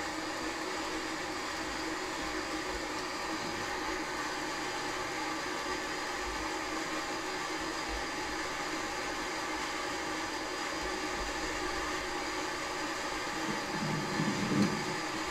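Facial steamer running with a steady hiss and hum. A short low sound rises above it near the end.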